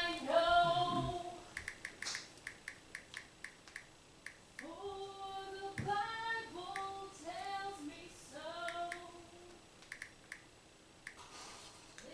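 A high-pitched voice in short gliding notes, loudest at the start and again midway. Between the notes come runs of light ticks, several a second.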